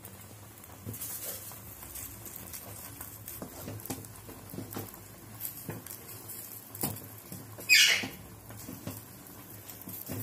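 A spatula stirring grated carrots simmering in milk, making irregular scrapes and taps against the pan. There is one louder, high-pitched scrape near the end.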